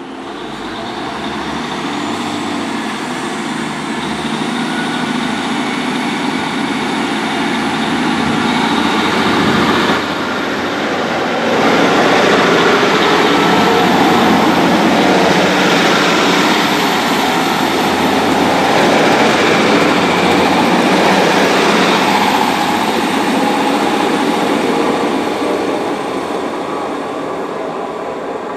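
GWR Class 150 Sprinter diesel multiple unit running along the platform, its underfloor diesel engines and wheels on the rails. It builds up, is loudest in the middle as the carriages pass close by, then eases off as the train moves away.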